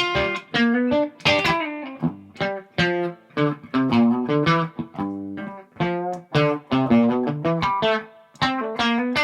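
A 1989 Gibson Custom SG electric guitar, not yet set up, played through an amplifier. It plays a melodic run of picked single notes and short chords, several notes a second, each with a sharp attack that rings briefly.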